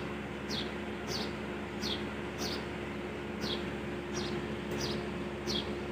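A bird repeating a short, high, downward chirp, a little more than once a second, over a steady low hum from a running washing machine.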